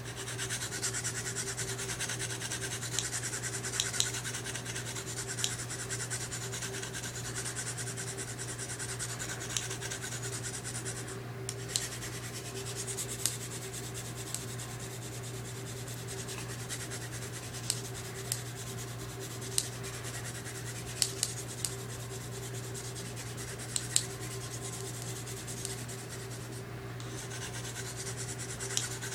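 Smith & Wesson Black Ops recurve knife blade being stroked along an oiled sharpening stone: a continuous scraping, with scattered sharp ticks of the steel on the stone. The strokes pause briefly about eleven seconds in and again near the end.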